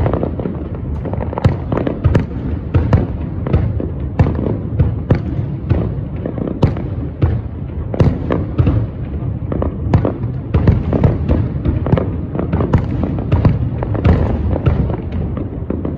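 Fireworks display: a rapid, continuous run of aerial shell bursts, booms and crackles, several each second, over a steady low rumble.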